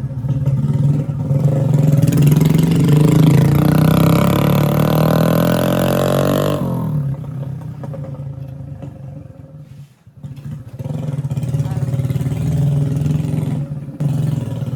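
Hero Splendor motorcycle's single-cylinder four-stroke engine on the move: it rises in pitch from about two seconds in, drops off sharply near seven seconds, goes almost quiet around ten seconds, then runs steadily again.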